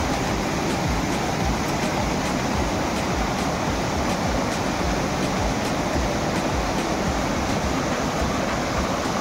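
Rushing mountain stream tumbling over rocks below a small waterfall: a steady, even rush of water.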